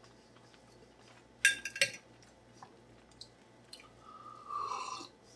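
Metal fork clinking against a Corning Ware Pyroceram dish: two sharp clinks about a second and a half in, a few faint ticks, then a scrape with a steady high tone lasting about a second near the end.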